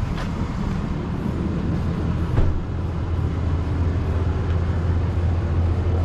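Steady low rumble of outdoor background noise, with a couple of faint ticks.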